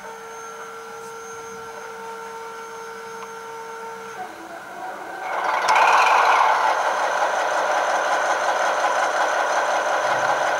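H0-scale V90 (BR 294) diesel locomotive model with an ESU 4.0 sound decoder playing its diesel engine sound. After a few seconds of faint steady tones, the engine starts about five seconds in with a loud rush that peaks a second later, then settles into a steady idle.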